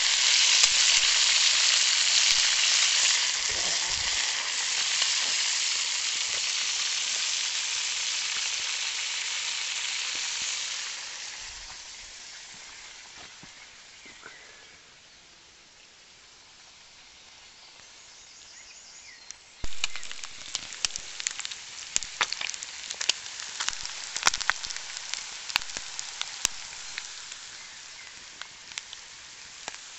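Bacon sizzling loudly on a hot stone slab over a wood fire; the sizzle fades away about eleven seconds in. About twenty seconds in, a quick run of sharp crackles and pops starts over a softer hiss as the fire burns under the cooking.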